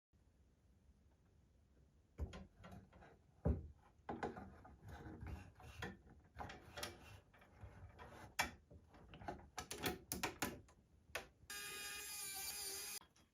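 Computer parts being handled and fitted by hand: irregular small clicks and knocks of metal and plastic, then a steady rasping sound lasting about a second and a half near the end.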